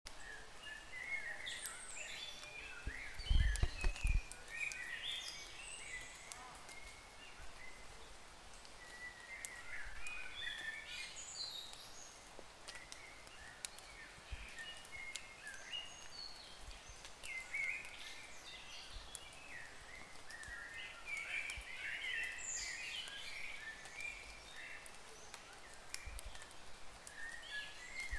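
Small birds chirping and twittering in repeated bursts of short, quick high notes, over a steady outdoor background. A few low thumps come about three to four seconds in.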